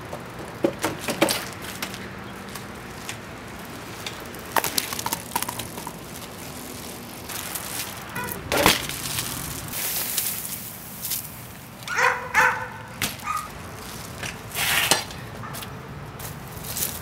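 Knocks and clattering of a bicycle being ridden and handled on a concrete pool deck, with a loud impact about eight and a half seconds in and a cluster of short pitched squeaks around twelve seconds in.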